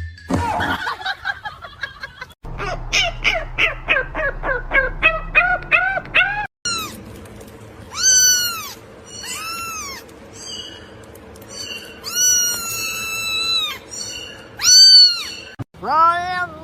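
Animal calls in several short clips: first a fast run of short, high chirping calls, then a cat meowing several times in long, rising-and-falling cries.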